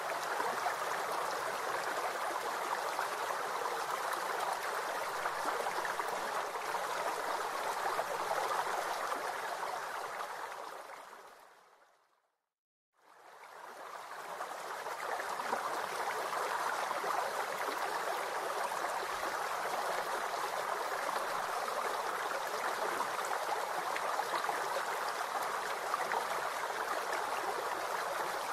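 Steady rushing of flowing water, like a stream. It fades out to silence about twelve seconds in and fades back in a second later.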